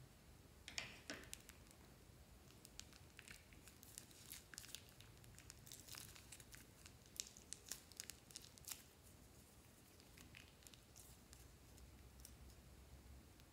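Thin plastic piping bag crinkling faintly as it is squeezed to pipe out slime: scattered small crackles and clicks, a cluster about a second in and more through the middle.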